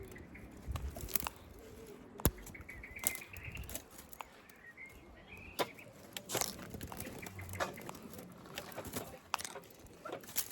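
Birds close by: scattered sharp clicks and flutters, with a faint thin chirp a few seconds in.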